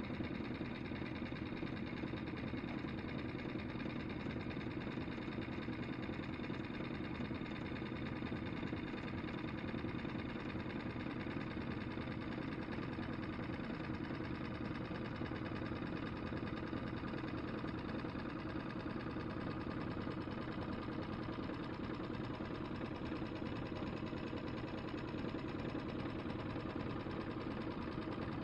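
Small Mercury outboard motor running steadily at slow trolling speed, pushing the boat along.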